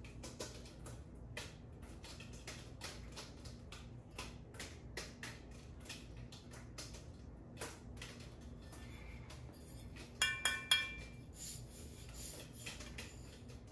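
Aluminium mountain-bike handlebar being handled and turned, with light taps and rubs throughout. About ten seconds in, three sharp knocks set the bar ringing briefly with a clear metallic chime.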